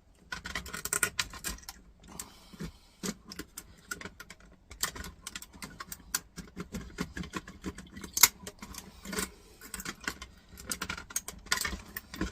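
Irregular metallic clicks and clinks of hand tools working a stubborn stainless steel pin out of a docking station's metal part, with one sharper knock about eight seconds in.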